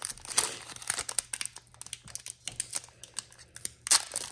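Foil Pokémon booster pack wrapper crinkling and tearing as it is opened by hand, in quick irregular crackles with a louder burst near the end.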